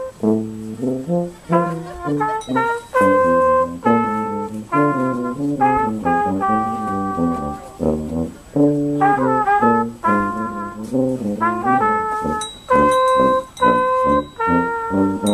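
A trumpet and a large upright-belled brass horn playing a tune together in short, separate notes, the horn on a low part under the trumpet's melody.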